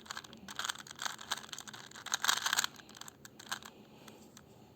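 Plastic Rubik's cube layers being turned rapidly by hand, a dense run of clicking that is busiest about two seconds in and thins out toward the end.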